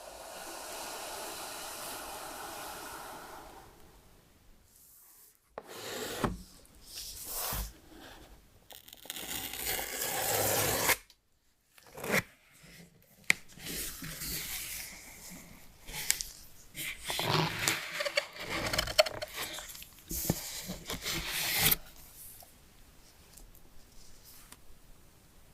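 Packaging of an iPhone 15 Pro box being opened: irregular bursts of tearing, rustling and scraping of paper and cardboard, with sharp clicks and taps, after a steady hiss that fades within the first few seconds.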